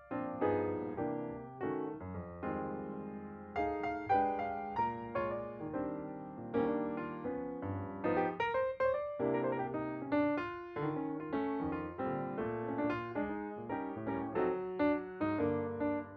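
Background piano music: a gentle melody over chords, with each note struck and fading.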